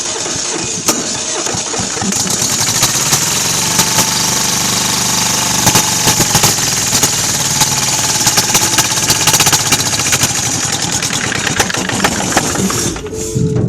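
Kohler KD425-2 two-cylinder diesel being cranked over cold and trying to fire, with a harsh, clattering engine note that builds about two seconds in. It cuts out near the end, a sign of the engine's hard starting after fuel priming.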